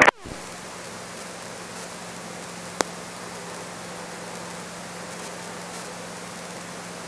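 Steady hiss of static on the helicopter's intercom and radio audio feed, with a faint low hum under it and a single click a little under three seconds in.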